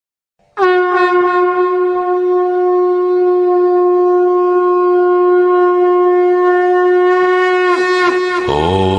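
A conch shell (shankh) blown in one long, steady note, which wavers and drops in pitch as it ends; a low chant begins just before the end.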